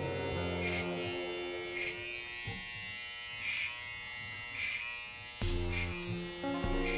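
Electric hair clipper running with a steady buzz, cutting hair over a comb in short strokes about once a second; the buzz gets louder about five and a half seconds in.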